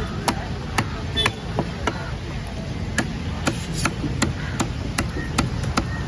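A knife chopping a whole fish into steaks on a wooden log block: a steady series of sharp chops, about two a second, over a low background rumble.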